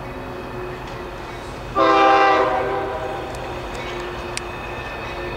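Air horn of an approaching freight locomotive sounding one short blast of about a second, a chord of several notes that starts suddenly and fades. Under it runs the steady low rumble of the oncoming train.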